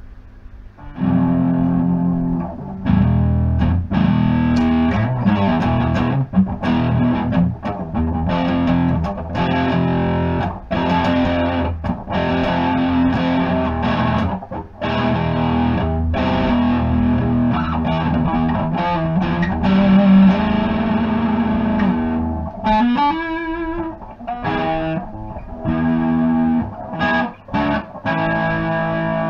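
Electric guitar played through a Big White Monkey Mark 1 "Chimp" hand-wired head, a 5-watt Class A tube amplifier with two EL84 and three ECC83 tubes. Chords and riffs start about a second in, and about three-quarters through there is a short break and a note bent upward before the playing resumes.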